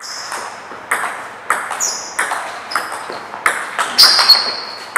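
Table tennis rally: the ball clicks in quick succession off bats and table. Short high squeaks, the loudest about four seconds in, come from players' shoes on the sports-hall floor.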